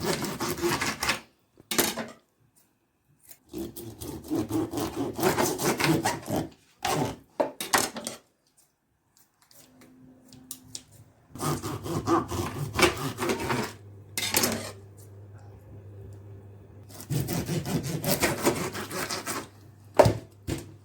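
Kitchen knife sawing through raw catfish, in several runs of quick back-and-forth strokes with pauses between them, and a sharp knock near the end.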